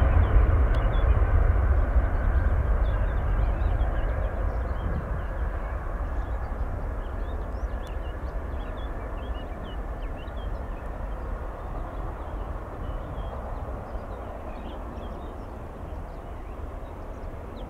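Airbus A319 corporate jet's twin jet engines at takeoff power: a deep rumble that fades steadily as the aircraft rolls away down the runway, lifts off and climbs out.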